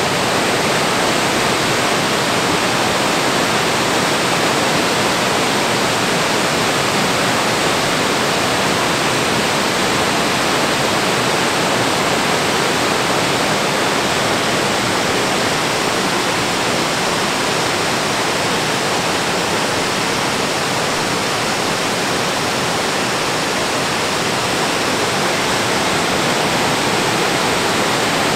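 Waterfall on a forest river, water pouring over two rock drops into a pool: a steady rushing that does not change.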